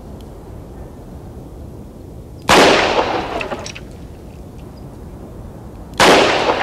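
Two revolver shots about three and a half seconds apart. Each is a sharp crack that dies away over about a second.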